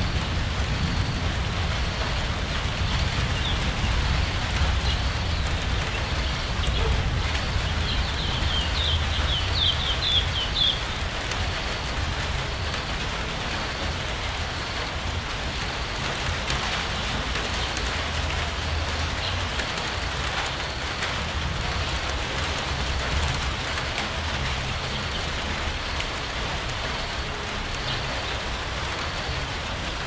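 Steady rain falling, an even patter, over a low rumble. A bird chirps in a quick run of high notes about eight seconds in, with a few more chirps near the start and the end.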